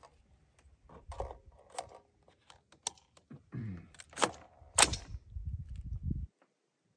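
A series of sharp metallic clicks and clacks from an AR-15 being handled and readied on the bench, the two loudest a little after four seconds in. A low rumble follows and stops abruptly about six seconds in.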